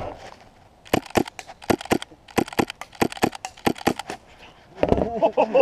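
Airsoft Mk23 pistol fired in quick strings of sharp pops, more than a dozen shots over about three seconds.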